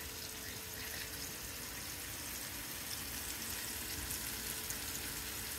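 Beef-and-sausage hamburger steak patties sizzling steadily in a little oil in a cast-iron skillet, searing on their first side.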